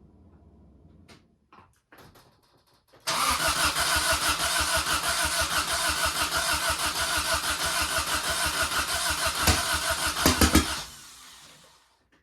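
Starter cranking a freshly assembled turbo Honda D-series 'mini-me' engine (D16Y8 head on a D15B7 block), an even rapid pulsing for about eight seconds with a few sharper pops near the end, then stopping without the engine running on. It is the first start attempt, which the owner found was troubled by spark plug wires in the wrong order.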